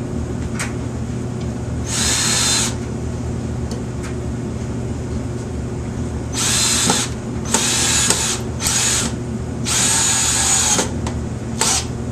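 Cordless drill driving wood screws into a 2x4 frame in short bursts, about six of them, each a rising-and-settling motor whine. A steady low hum runs underneath.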